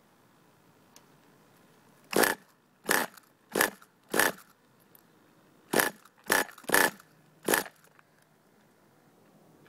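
Pull-start cord on the Redcat Volcano S30's nitro engine yanked eight times, in two quick runs of four, each pull a short burst as the engine turns over without catching.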